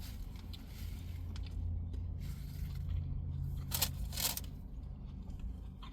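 Eating a sandwich: quiet chewing and handling of the food and wrapper, with two short crinkles a little past the middle, over a steady low hum.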